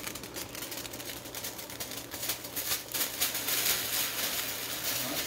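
Water heating in a pan on a red-hot electric coil burner, crackling and sizzling with many small irregular pops. The sizzle grows louder and hissier from about two seconds in.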